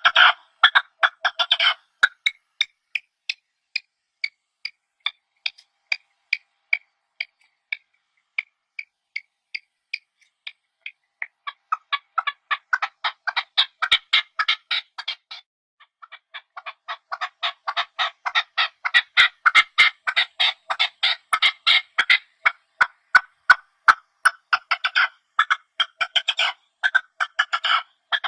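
Partridge calling: a string of short, sharp clucking notes that slows and fades. It then rises again into long runs of rapid chattering.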